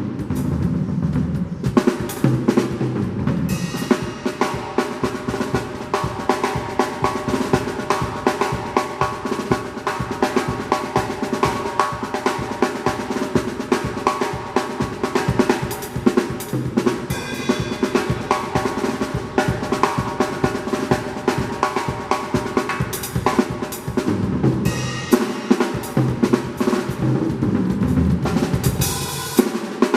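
Drum kit playing a fast, busy sebene groove, with dense snare strokes over the bass drum and crash-like cymbal splashes twice.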